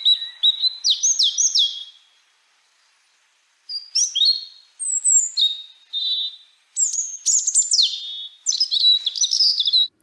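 European robin singing: high, thin, varied phrases of whistles and fast trills that change pitch from phrase to phrase. After the first phrase there is a pause of about a second and a half, then the phrases follow one another closely.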